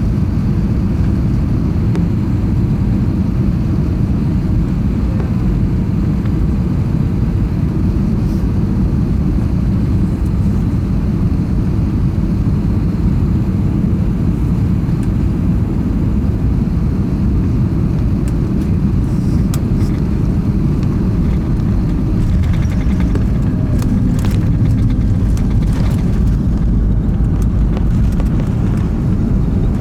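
Steady, loud low rumble inside an Airbus A320 cabin as it lands, from the engines and the air and wheels outside. A few faint clicks and rattles come in the second half.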